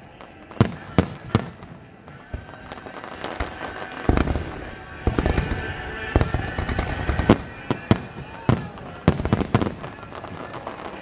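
Starmine fireworks barrage: shells bursting one after another in a dozen or so sharp bangs, coming thicker and louder from about four seconds in.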